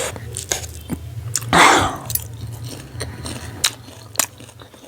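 Close-miked eating of spicy instant noodles and pork: chewing with wet mouth clicks, and one short loud rush of noise about a second and a half in. A steady low hum runs underneath.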